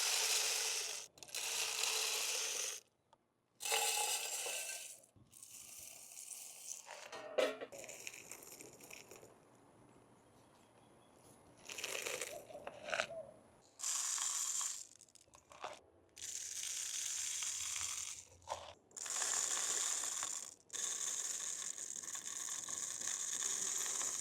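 Bird seed poured into a feeder, rattling down in a series of pours a second or two long with short breaks between them.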